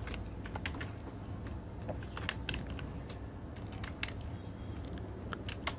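Computer keyboard typing: scattered, uneven keystroke clicks as a short phrase is typed, over a low steady hum.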